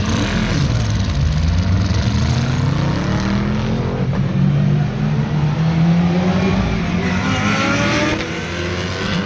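A pack of GT race cars passing one after another at speed, their engines revving and rising in pitch as they accelerate.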